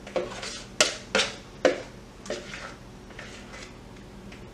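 A spoon scraping and knocking against a mixing bowl as batter is scraped out into a loaf pan. About five sharp scrapes come in the first two and a half seconds, then it goes quieter.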